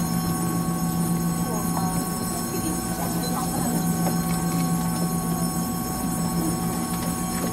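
Taiwan Railways EMU700 electric multiple unit standing at a station, heard from inside the car: a steady low electrical hum from its onboard equipment, with a few fainter steady higher tones over it.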